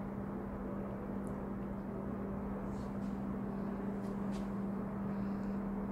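A steady low hum on one constant pitch, with a few faint clicks.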